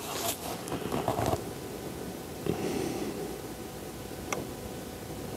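Quiet steady hiss and rustle, with a few faint clicks scattered through it.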